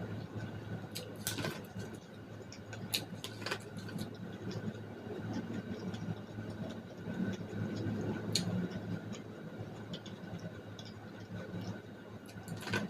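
Close-up eating of boiled corn on the cob: biting and chewing, with a handful of sharp clicks from bites into the kernels, over a steady low background hum.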